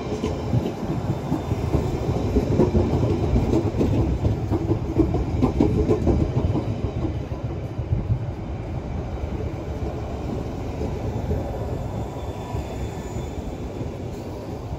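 London Underground Rail Adhesion Train, a converted D78 stock unit, running along the platform: a steady rumble of wheels and clacking over the rail joints. It is loudest in the first half and eases off slightly toward the end.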